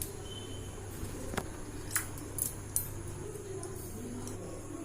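Light clicks and taps of ingredients being added by hand to a mixer jar, over a low steady hum.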